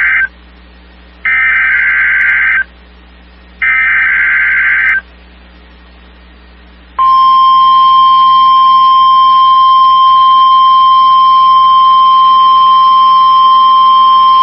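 NOAA Weather Radio test tones. First come Specific Area Message Encoding (SAME) header data bursts: one ends just at the start, then two more follow, each about a second and a half long with short gaps between. After a two-second pause, the steady single-pitch warning alarm tone begins about seven seconds in.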